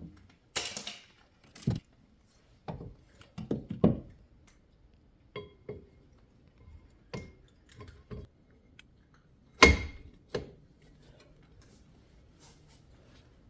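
Metal clinks, knocks and clanks of rear brake parts being handled and fitted back over the rotor, some with a short metallic ring; the loudest clank comes about ten seconds in.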